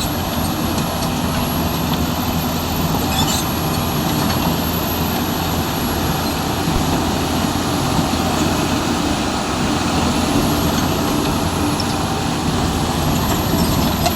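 Hyundai R220-9SH excavator's diesel engine running steadily at working speed.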